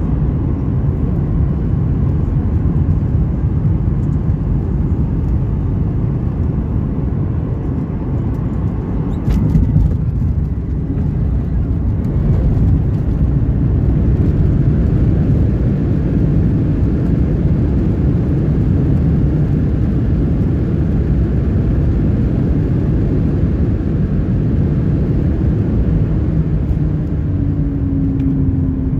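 Cabin noise of a Boeing 737-900ER landing, a steady rush of airflow and engine sound. About nine seconds in there is a sharp thump as the main wheels touch the runway. A few seconds later the rumble grows louder as the ground spoilers are up and the jet decelerates on the rollout.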